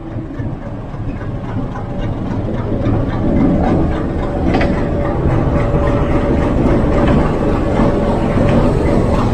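Diesel locomotive engine running as a train draws in, its low rumble growing louder over the first few seconds and then holding steady, with a steady whine coming in about halfway.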